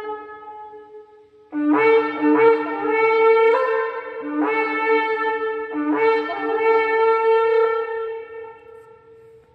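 Yemenite shofar being blown. The tail of one blast fades out, then about a second and a half in a new long blast starts, repeatedly breaking and jumping between a low and a higher note. It ends held on the higher note and fades away near the end.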